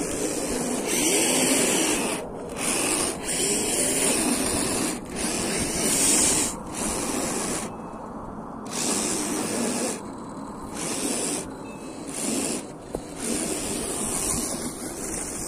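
RC rock crawler's electric motor and drivetrain whining in stop-start bursts as the throttle is worked, with the hiss of its tyres digging through snow.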